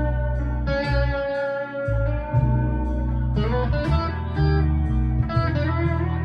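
Harley Benton TE-52 Telecaster-style electric guitar played through a Behringer Vintage Overdrive pedal and a Blackstar ID Core 20 V3 amp on its crunch channel. Held notes and chords ring out in turn, with a note bent up in pitch about three and a half seconds in.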